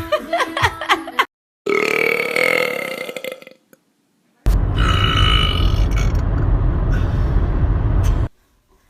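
Men belching in separate clips: a short clatter of clicks, then a pitched burp of about two seconds. After a pause comes a long, deep belch of nearly four seconds that cuts off suddenly.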